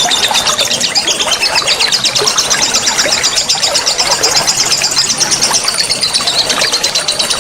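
Songbird singing a fast rapid-fire 'nembak' song: a long run of quickly repeated high, sharp notes that keeps going without a break, over a background of running water.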